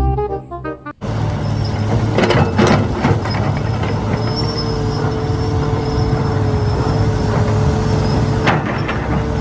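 A short children's music jingle, then a heavy excavator engine running steadily with a high held whine, a low rumble and a few sharp clanks about two to three seconds in and again near the end.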